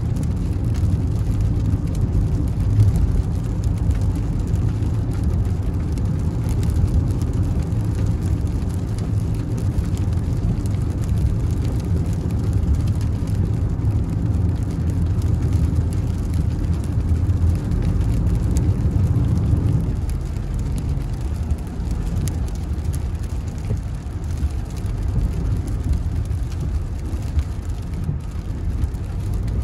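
Steady low rumble of a car's engine and tyres on a wet road, heard from inside the cabin while driving, easing off slightly about two-thirds of the way through.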